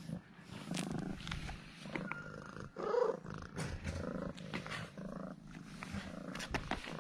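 Domestic cat purring close up, a steady low rattling purr, with a short louder sound about three seconds in.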